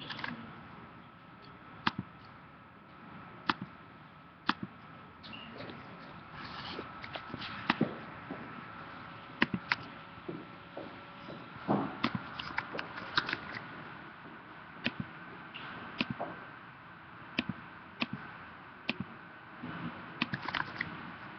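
About twenty short, sharp clicks and knocks at uneven intervals, over a faint steady high whine and low room noise.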